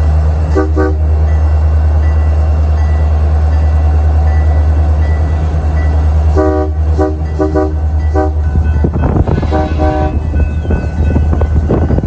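A diesel locomotive running with a heavy low rumble, sounding its multi-chime air horn in a series of short blasts, two near the start and a cluster later. Wheel clatter on the rails builds over the last few seconds.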